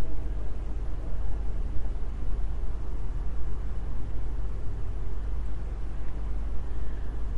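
Steady low rumble with hiss throughout.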